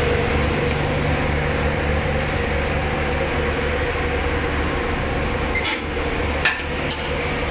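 A passenger boat's engines running with a steady low drone and a wash of noise, heard on deck; a few sharp knocks about six to seven seconds in.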